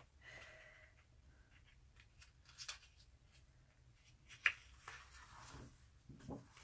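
Faint paper rustles and light taps from a hand handling the pages of a large art book, with one sharper click about two-thirds of the way through.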